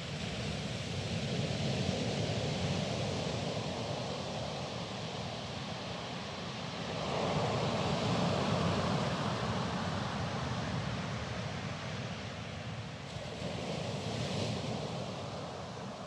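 Sea waves breaking and washing over pebbles on a beach, a steady rushing noise that swells three times as waves come in.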